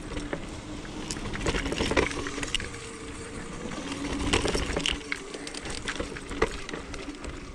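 Varla Eagle One off-road electric scooter riding over rough grass and a pine-needle trail: a faint steady motor whine under the rolling noise of the tyres, with frequent short rattles and knocks as it goes over bumps.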